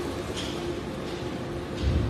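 Shredder line and its discharge conveyor running: a steady mechanical din with faint ticks now and then.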